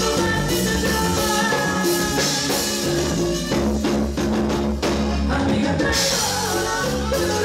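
Live band playing an amplified song: a woman singing into a microphone over electric bass, a drum kit and a Roland keyboard. A cluster of drum hits comes a little past the middle.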